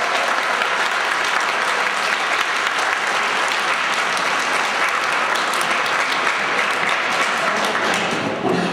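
Seated audience applauding, a steady mass of hand claps that thins out near the end.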